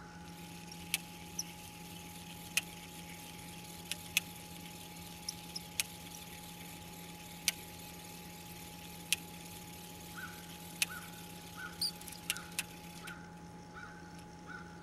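Fishing reel being cranked: scattered sharp clicks and, from about ten seconds in, a run of short regular chirps about three a second, over a steady low hum.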